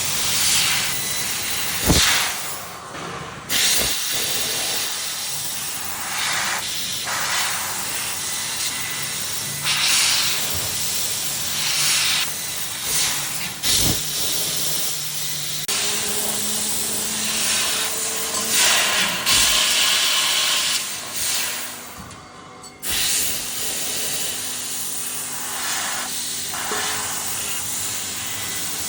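Fiber laser tube cutting machine with a Raytools head cutting steel tube: a loud, steady hiss of assist gas at the cutting head. The hiss stops briefly twice, near the start and about two-thirds through, with a few sharp clicks, and a low steady hum joins in the second half.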